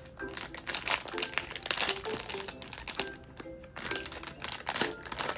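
Plastic packaging crinkling and rustling in irregular bursts as a blind box's wrapping is handled and opened, over background music of short repeated notes.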